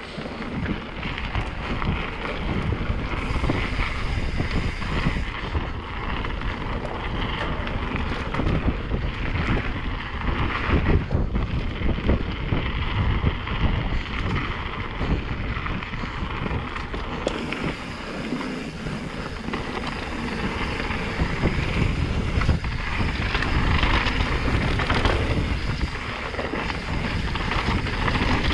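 Santa Cruz Megatower enduro mountain bike descending a rough trail fast: tyres running over dirt and stones, and the bike rattling with a steady stream of small knocks. Wind rushes continuously over the action-camera microphone.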